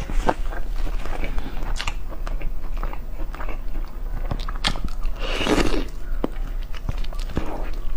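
Close-miked eating: bites and chewing with many sharp crunchy clicks, and a longer, louder noisy stretch about five and a half seconds in.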